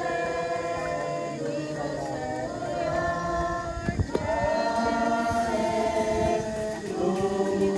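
A group of voices singing together, holding long sustained notes that glide from one pitch to the next, with a short sharp knock about four seconds in.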